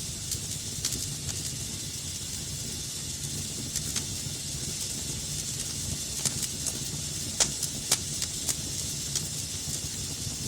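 Wood fire crackling in a fireplace: a steady hiss and low rumble of burning, with scattered sharp pops and snaps, the loudest two close together about seven and a half seconds in.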